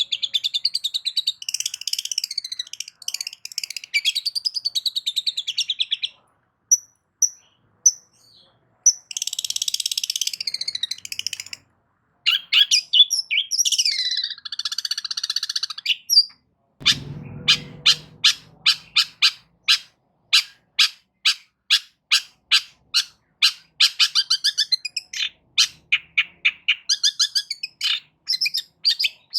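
Long-tailed shrike (cendet) singing: harsh, high chattering phrases broken by short pauses. After about halfway it settles into a long run of sharp repeated notes, roughly two a second.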